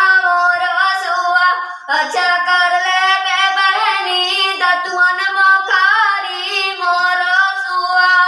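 A young girl singing a Sua geet, a Chhattisgarhi folk song, solo and unaccompanied. She holds long notes with a slight waver and pauses briefly for breath about two seconds in.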